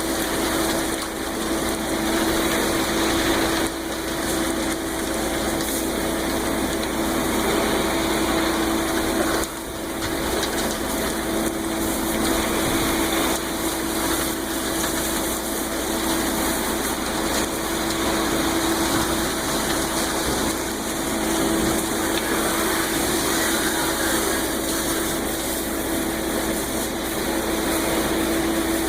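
Concrete mixer truck running steadily with water spraying as the truck is washed out after the pour, a constant engine hum under a steady hiss of water.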